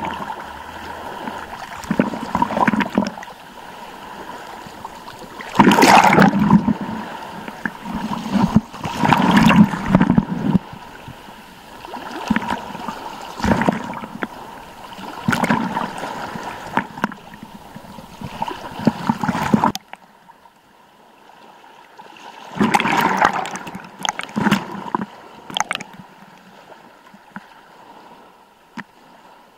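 Small sea waves washing and sloshing over rocks right at a camera held at the waterline, coming in surges every second or two, with water splashing close to the microphone. The sound drops suddenly a little past the middle and picks up again with a few gentler sloshes of water against the camera.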